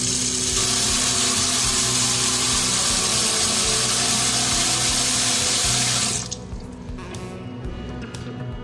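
Tap water running into a stainless steel kitchen sink and pooling over a closed drain valve, the tap shutting off about six seconds in. Background music with steady tones runs underneath.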